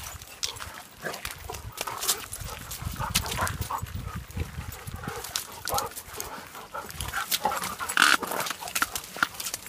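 Dogs playing together on a gravel path, with short dog noises amid footsteps and paws crunching on wet gravel; the loudest dog sound comes about eight seconds in.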